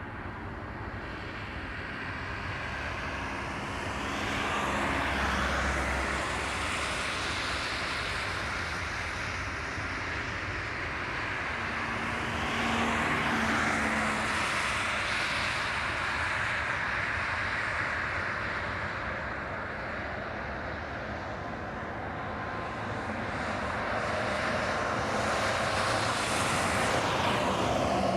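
Boeing 777-300ER's GE90 turbofan engines running at takeoff thrust: a steady jet roar that swells and eases several times.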